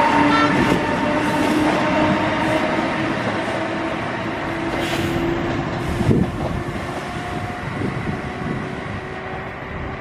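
Siemens ACS-64 electric locomotive running by with its coaches: a steady electric whine over rolling wheel-and-rail noise that slowly fades. There are a few low thumps from the wheels in the second half.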